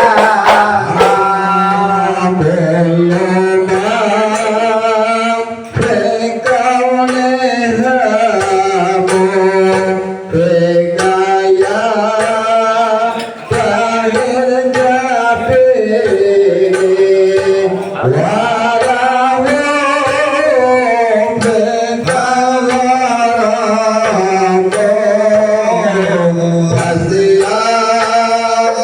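A song with a voice singing long held, wavering notes over hand-drum percussion.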